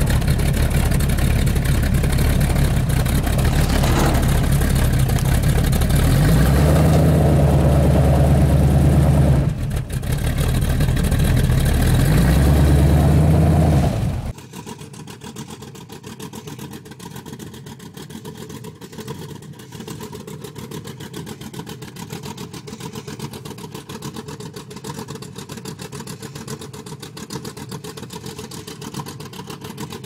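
Cammed 350 small-block V8 of a 1983 Chevy C10, running through short 12-inch glasspack mufflers with turn-downs: loud, revved up twice and held a few seconds each time. About 14 seconds in it cuts to the same engine idling, much quieter and steady.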